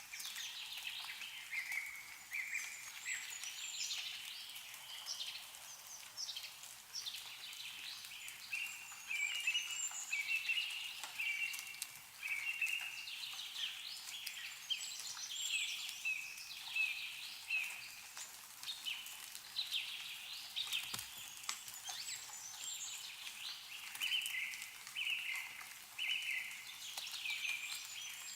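Birds singing and chirping steadily with many short repeated notes, over faint drips of melting snow falling from trees.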